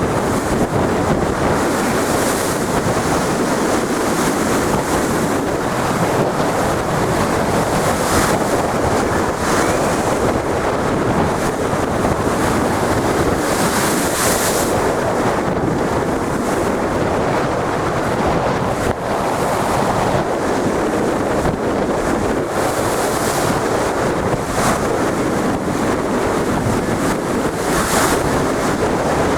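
Big sea waves surging and breaking, with strong wind buffeting the microphone. A constant rush of noise, with a few short surges of brighter hiss as waves break.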